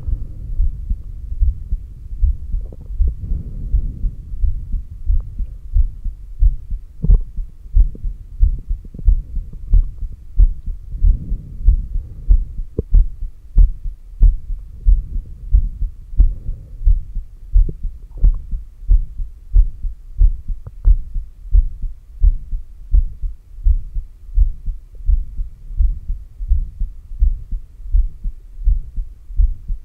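Heartbeat picked up by a stethoscope on the chest at the heart's apex: a steady, even run of low thumps. The beats come through more distinctly after the first few seconds, and a single sharp click of stethoscope noise comes right at the end.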